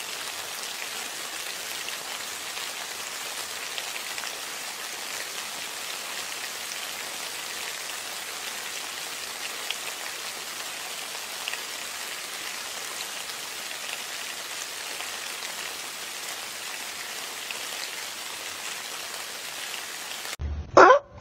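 Steady rain, an even hiss with faint scattered drip ticks. Near the end it cuts off and loud animal calls begin.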